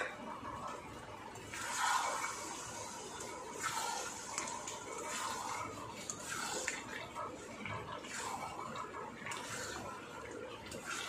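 Chicken masala sizzling in a kadai after a splash of water, while a spatula scrapes and stirs through it in irregular strokes, during the kosha (fry-down) stage. A sharp clink right at the start.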